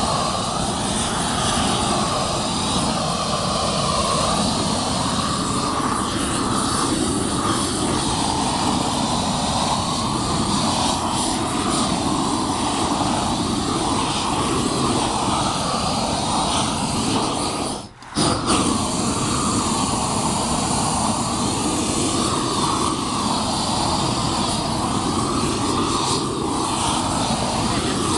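Propane roofing torch burning steadily as it heats a roll of torch-down modified-bitumen roofing, with a drop-out lasting an instant about two-thirds of the way through.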